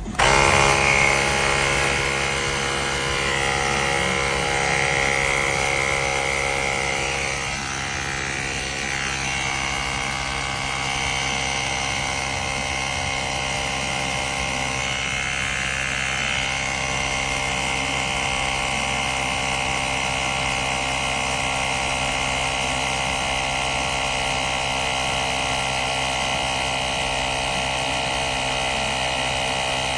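Cordless portable tire inflator's piston compressor starting abruptly and running steadily with a buzzing motor drone.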